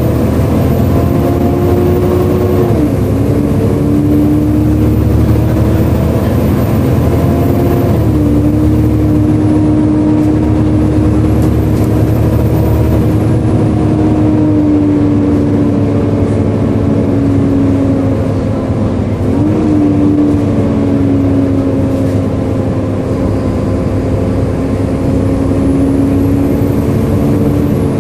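Volvo B7LA articulated bus running, its diesel engine rumbling under a loud whining cooling fan, the 'loud hoover'. The whine's pitch dips sharply and climbs back three times, about 3, 8 and 19 seconds in.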